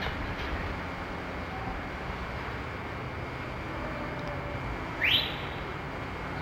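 CSX diesel switcher locomotive running with a steady low rumble as it moves slowly along the track. About five seconds in, a single short, sharp rising whistle cuts in over it.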